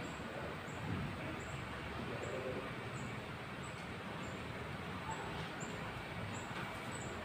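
Steady room noise with a faint high-pitched chirp repeating about every 0.7 seconds.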